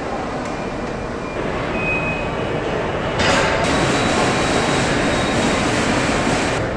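Steady factory-floor machinery noise on a car assembly line, turning louder and hissier about three seconds in.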